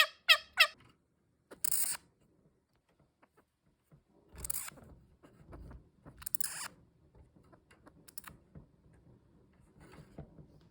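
A Senegal bushbaby's rapid series of short pitched calls, about six a second, stops before the first second is out. A few brief rustling, scraping noises follow.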